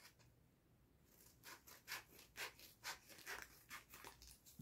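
Faint rustling of packaging being handled and worked open by hand: a run of soft, scratchy rustles, about two a second, starting about a second in.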